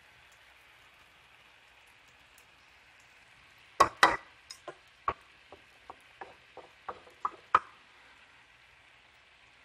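A faint steady hiss, then from about four seconds in a run of irregular sharp knocks and clicks, the first two the loudest: kitchen utensils knocking against a nonstick frying pan.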